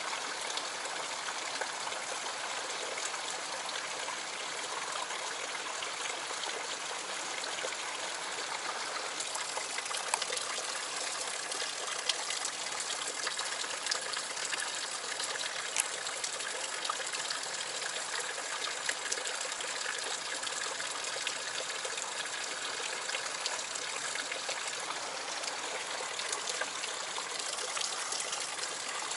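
Stream water running and trickling steadily through a rocky channel, with a few faint clicks in the middle stretch.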